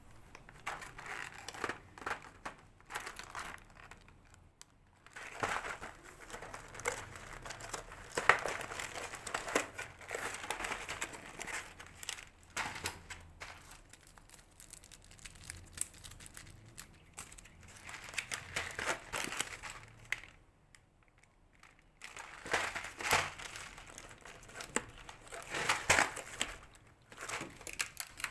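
Plastic wrapping crinkling and crackling as a toy package is handled and unwrapped, in uneven stretches with a couple of brief pauses.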